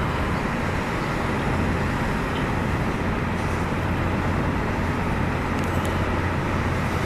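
Car driving along a road heard from inside the cabin: steady tyre and engine rumble with a low hum.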